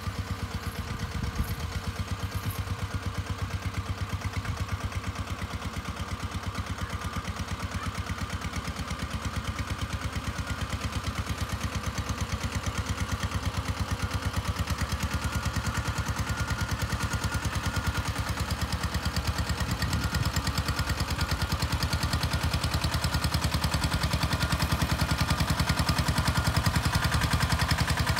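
Tomo Vinković 821 compact tractor's diesel engine running steadily at low speed with a fast, even beat while it drives a sprayer, growing louder toward the end as it comes closer.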